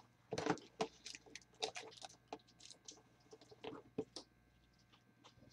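Faint, irregular clicks, taps and scrapes of a cardboard trading-card box and its cards being handled and shifted on a table.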